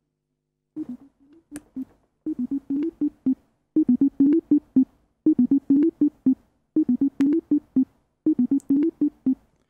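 Simple synthesizer tones from Reaper's stock ReaSynth plugin playing a short looped MIDI phrase of about seven quick notes. The phrase repeats about every second and a half, heard through headphones held up to the microphone.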